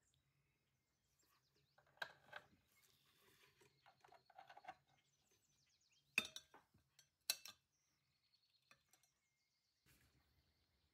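Scattered light clicks and clinks of small metal parts and tools being handled, the sharpest two about six and seven seconds in.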